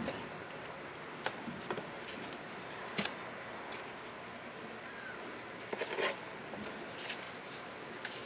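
Kittens' paws and claws scrabbling on a cardboard box and crate floor: scattered light clicks and scratches, with a sharper tap about three seconds in and a small cluster around six seconds.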